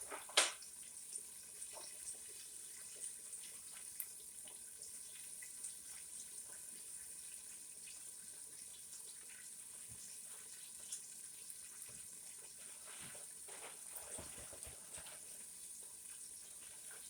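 Chicken pieces frying in hot oil: a steady high sizzle with scattered small pops and crackles, and one sharper click about half a second in.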